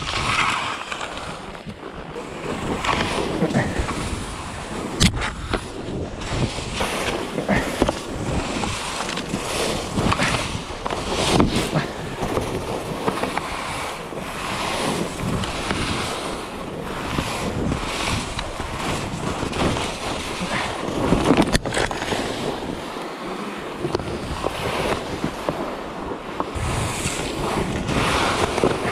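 Skis swishing and scraping over thin, patchy snow through a run of turns, swelling and fading every second or two, with wind buffeting the microphone. A few sharp clicks stand out.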